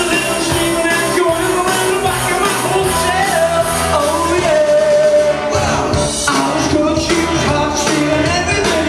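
A man singing into a microphone over amplified backing music with a steady beat.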